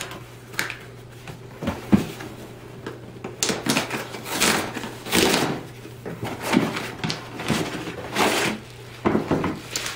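Cardboard Priority Mail box being torn open by hand: a couple of knocks and bumps from handling the box, then repeated short rips and scrapes of the cardboard end flap.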